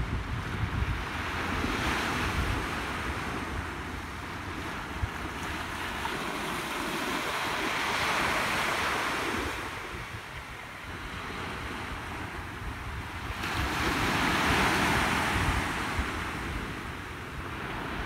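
Small ocean waves breaking gently on a sandy beach and washing up the shore, swelling and easing three times. Wind buffets the microphone with a low, uneven rumble.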